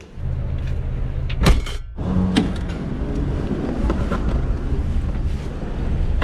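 Car idling with a steady low rumble while a car door is handled and pulled shut. One sharp knock about a second and a half in is the loudest sound, with smaller clunks later.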